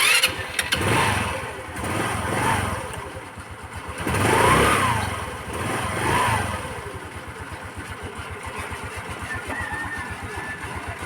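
A Rusi Gala 125cc scooter engine catches suddenly and is blipped up and down four times on the throttle to keep it from stalling, then settles into a steady idle about seven seconds in. The scooter is hard-starting and quick to die with its carburetor needle clip set at position 2.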